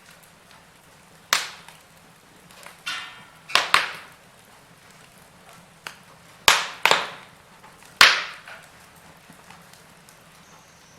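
Wood fire crackling, with about six sharp, loud pops and snaps over a faint steady hiss.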